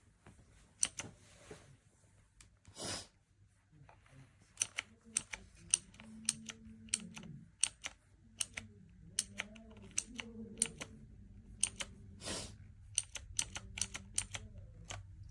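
Typing on a MageGee 75% mechanical keyboard with red (linear) switches: single keystroke clicks at an uneven pace, with two longer, heavier strokes.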